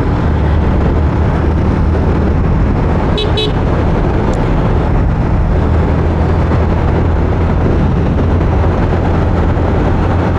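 Motorcycle engine running steadily while riding, under a loud rush of wind on the microphone. A horn gives two short toots about three seconds in.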